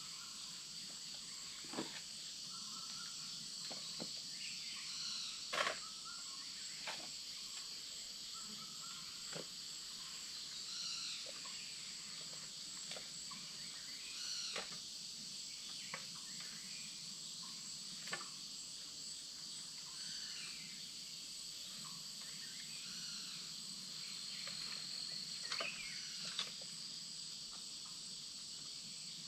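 Forest insects (crickets or cicadas) keeping up a steady high-pitched drone, with a dozen or so faint sharp clicks and a few short chirps scattered through it.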